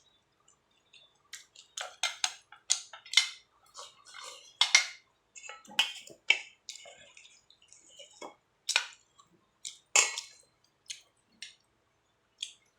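Someone eating a meal: irregular clicks of utensils against a bowl mixed with short wet mouth sounds of chewing and sipping.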